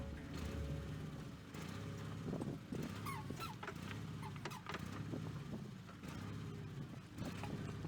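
Small backhoe's engine running steadily and faintly, with short high chirps and a few clicks over it.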